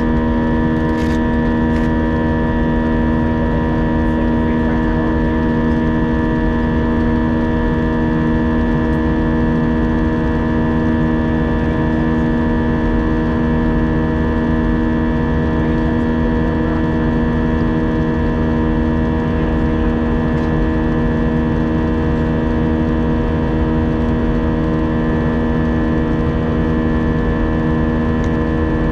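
Airbus A320 cabin drone: the jet engines and airflow heard from inside the cabin as a steady, loud hum with several held tones, unchanging in pitch or level.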